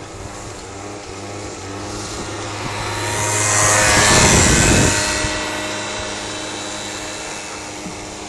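Moped scooter engine held at steady high revs while its rear tyre spins on the ice in a burnout. A hissing scrape of rubber on ice swells to its loudest about halfway through as the scooter passes close, then fades as it moves away.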